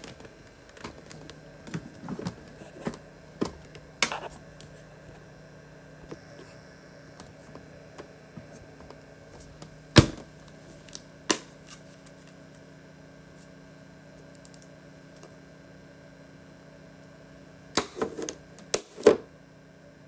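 Small plastic cosmetic containers handled, with scattered clicks and taps: a sharp snap of a lid about halfway through, another soon after, and a quick run of clicks near the end, over a steady faint hum.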